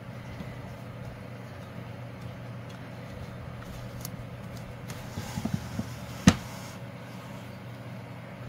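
Steady low room hum with faint handling sounds of hands working yarn and a darning needle through a crocheted piece: a few small taps and rustles, then one sharp click about six seconds in.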